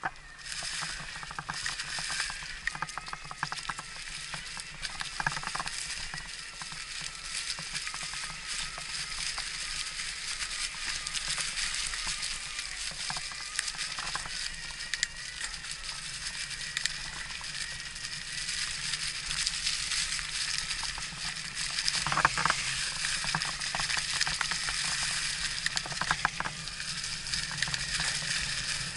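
Electric mountain bike riding uphill on a loose trail: a steady crackling of tyres over gravel and dirt, with scattered clicks from stones and a couple of louder knocks in the last third.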